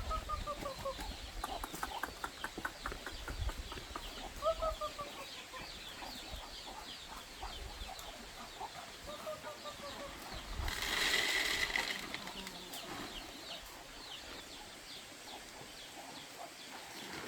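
Chickens clucking and calling, with a drawn-out falling call every few seconds over a patter of short clucks and high chirps. A brief rustling burst comes about eleven seconds in.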